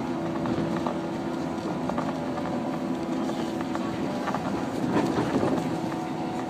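115-series electric train running on the rails: a steady hum of motors and gearing under running noise, with scattered clicks from the wheels and a louder stretch about five seconds in.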